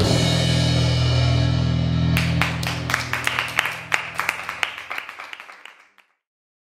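Rock band ending a song: a held final chord rings on while, from about two seconds in, the drummer plays a fast run of cymbal and drum hits. The hits grow quieter and the whole sound fades out near the end.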